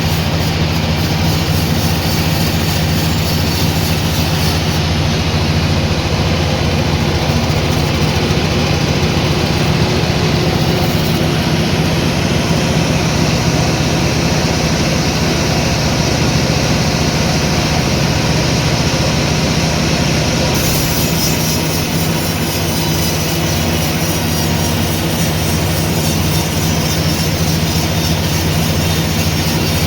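Sawmill machinery running steadily with a low, even hum and hiss, as a saw works through teak logs.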